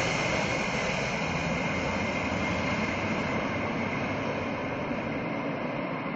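Four-engine jet aircraft on landing approach with gear down: a steady jet engine noise with a high whine, easing off slightly toward the end.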